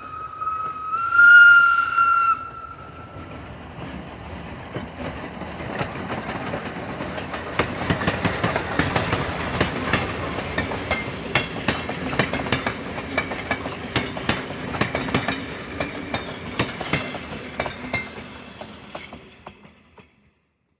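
Steam locomotive whistle blowing a steady tone that steps up louder and higher about a second in and stops about two seconds in. The train then passes with a rhythmic clatter of wheels over rail joints, building to loudest in the middle and fading away.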